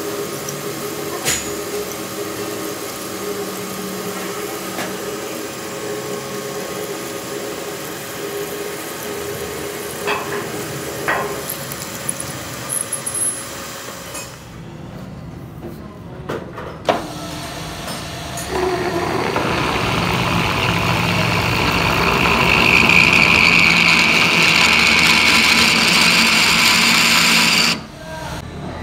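Metal lathe running with a drill in the tailstock boring into the centre of a spinning metal workpiece. About two-thirds through, the drilling gets louder and steadier with a high-pitched squeal, then cuts off suddenly near the end.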